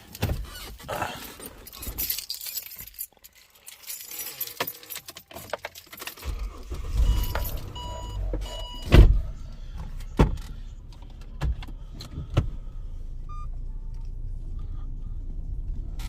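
Keys jangling and handling noises in a Holden Territory, then its engine starts about six seconds in and settles to a steady idle. A chime beeps three times, a loud thump comes about nine seconds in, and a few sharp clicks follow over the idling engine.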